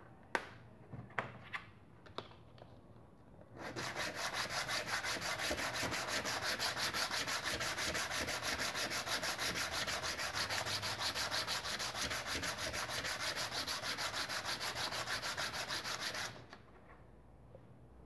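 A few light clicks as a small disc brake pad is set down on the bench. Then, about three and a half seconds in, a steady fast scraping of quick back-and-forth strokes as the pad is rubbed on flat 800-grit sandpaper, stopping suddenly after about twelve seconds. The pad is being sanded clean of the dirt that makes the hydraulic brake noisy.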